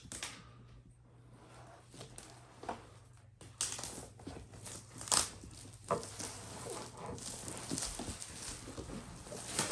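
Packaging being handled and unwrapped: quiet at first, then rustling and crinkling with scattered clicks and knocks from about three and a half seconds in, one louder about five seconds in.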